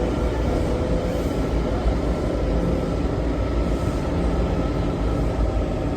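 Washington Metro train running, heard from inside the railcar: a steady low rumble with a faint, steady whine on top.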